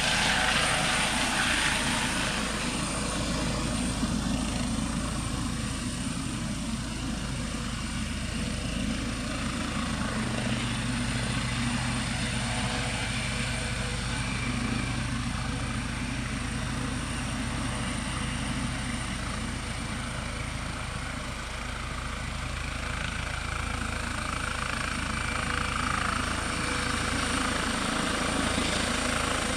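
Eurocopter EC135 T2+ helicopter hovering low: a steady rotor thrum with a constant high whine over it. It fades a little past the middle and grows louder again near the end.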